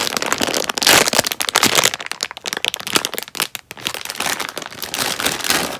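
Plastic squishy packaging crinkling and crackling as it is handled and opened, dense and continuous.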